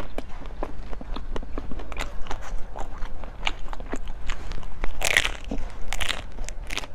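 Bites and chewing of a hard, brittle food close to the microphone: a run of sharp cracks and crunches, the loudest about five and six seconds in.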